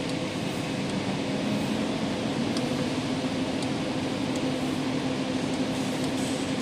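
Steady machine hum with a constant low tone, a motor running behind the CNC controller. A few faint short ticks come as controller keys are pressed.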